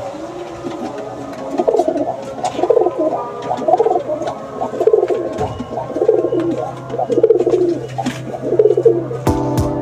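Domestic pigeon cooing over and over, a series of coos about one a second.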